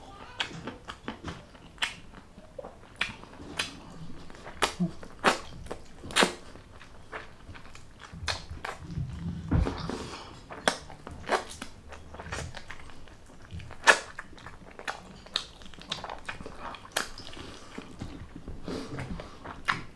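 Close-miked eating sounds of a mukbang: chewing, with irregular sharp wet clicks and snaps from the mouth and food every second or so and a dull thud about halfway through.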